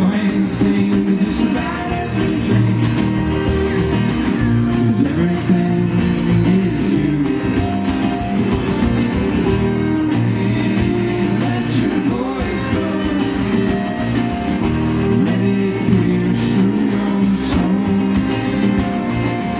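Acoustic folk string band playing a song live, with strummed acoustic guitar, fiddle and upright double bass under singing.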